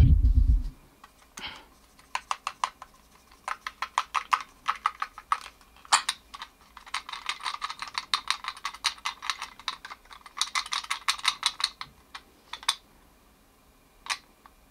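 Small hard plastic parts of a shark-shaped toy being handled and fitted together: a long run of quick little clicks and taps. The clicks are sparse at first, come thick and fast between about 7 and 12 seconds in, then a few single clicks follow.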